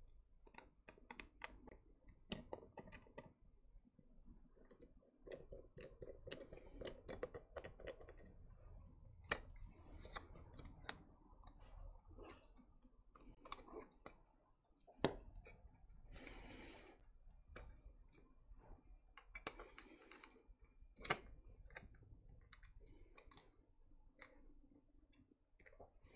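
Faint, scattered clicks and taps of handling a Nintendo Switch's metal heat shield and its small screws with a precision screwdriver. There are a few sharper knocks in the second half and a brief rustle between them.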